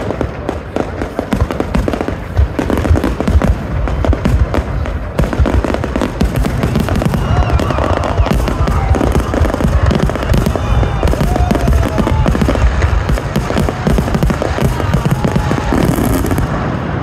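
Aerial fireworks shells bursting in a loud, dense barrage of booms and crackles, many overlapping at once.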